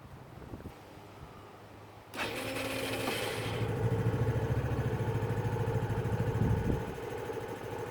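A 2008 SYM VS125 scooter's engine starting about two seconds in, catching and running, louder until near the end, then settling to a lower, steady run. It starts on the freshly fitted battery.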